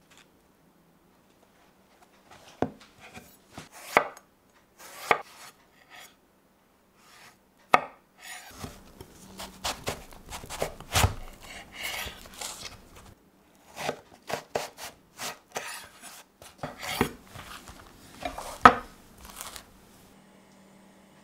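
Kitchen knife cutting a raw aubergine into wedges on a wooden cutting board: the blade crunching through the flesh and knocking on the board. A few separate cuts after a couple of seconds, then a quicker run of cuts with softer rubbing as the pieces are moved, the sharpest knock near the end.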